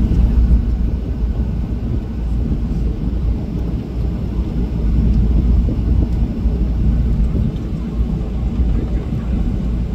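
Jet airliner (Jeju Air Boeing 737) heard from inside the cabin while it moves on the ground just before takeoff: a loud, steady low rumble of engines and airframe.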